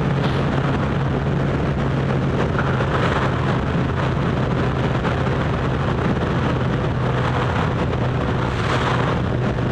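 Motorcycle engine running at a steady cruising speed, holding one even note, with wind rushing over the microphone that swells briefly twice.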